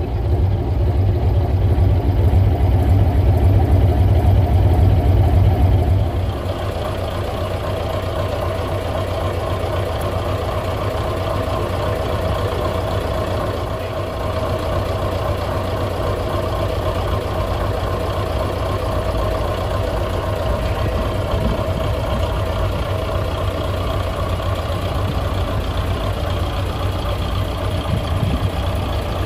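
Heavy truck engine of a hot-rodded 1967 Scania Vabis LS 76 idling. About six seconds in, the loud low rumble falls away and a steadier, slightly quieter hum carries on.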